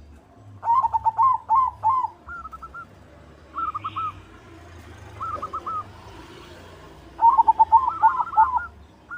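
White zebra dove (perkutut) cooing: a rapid run of short staccato coo notes about a second in, then a few shorter phrases of three or four notes, and another rapid run near the end.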